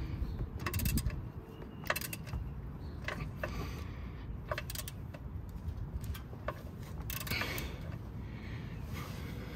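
Ratchet wrench clicking and clinking in short, irregular runs as it snugs a car's oil drain bolt by hand.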